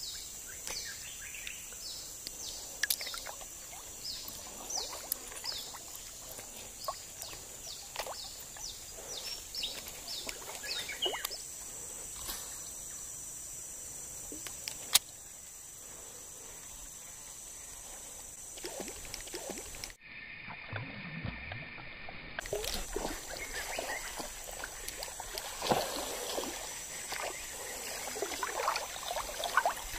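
Pondside ambience: a steady high drone with many short falling chirps, over light trickling and small splashes and clicks as a soft frog lure is cleared of weed, cast and cranked back on a baitcasting reel. A single sharp click stands out about halfway through.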